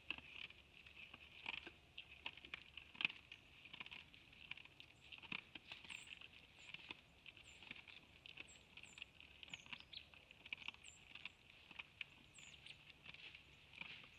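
Faint, irregular clicks and crunches of white-tailed bucks feeding from a trough feeder, over a steady high hiss. A few short, high chirps of a bird come in the second half.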